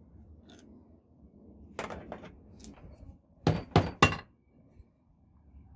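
Hammer striking the large drive gear on a truck air compressor's crankshaft end to knock it loose. There are two lighter knocks about two seconds in, then three loud blows in quick succession.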